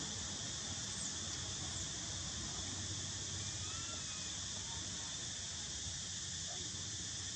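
Steady high-pitched insect chorus, an even hiss that does not let up, with a few faint short chirps around the middle.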